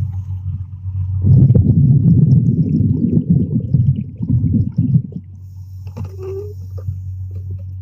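Muffled underwater sound: a steady low hum under a rumbling surge of water noise that swells about a second in and dies away about four seconds later.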